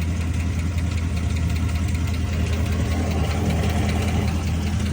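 Chrysler SRT8's 6.4-litre Hemi V8 idling steadily with a fast, light tick, the 'Hemi tick', loudest on the passenger side. The owner suspects either worn lifters or an exhaust leak.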